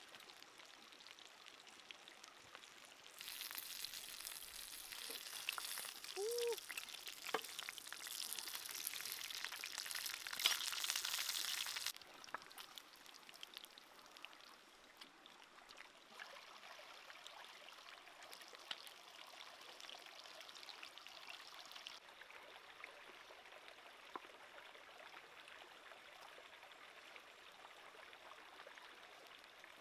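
Shallow stream running over rocks, a steady soft rush of water. For several seconds early on a louder hiss rises over it, then cuts off abruptly.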